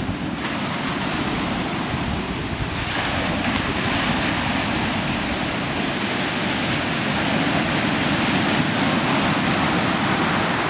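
Surf breaking and washing up a shingle beach, with wind rumbling on the microphone. The hiss of the wash grows louder about three seconds in.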